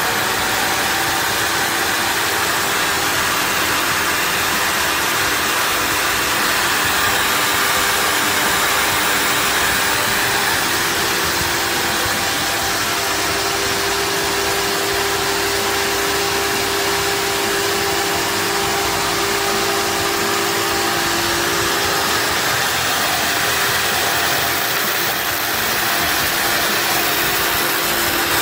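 Table saw motor running steadily at speed, spinning a thick paper disc fitted in place of the steel blade, with no cutting yet.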